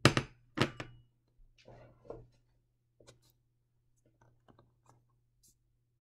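Two sharp knocks within the first second as a plastic bowl is handled on the paper, then faint rustles and light scattered ticks of a pencil tracing around the bowl's rim, over a faint steady low hum.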